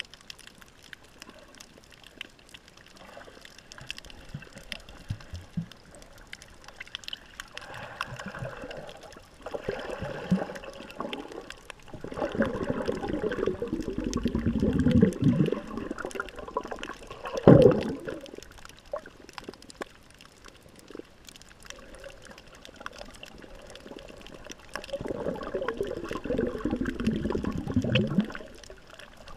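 Underwater sound picked up by a camera in a waterproof housing: a faint steady crackle with water gurgling and sloshing around the housing, swelling up several times, the loudest a short surge a little past halfway.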